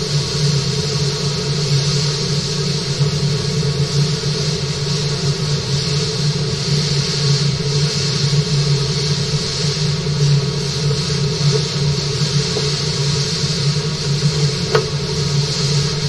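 Steady mechanical hum with a hiss of running water from a fish-farming tank's water circulation, with one short click near the end.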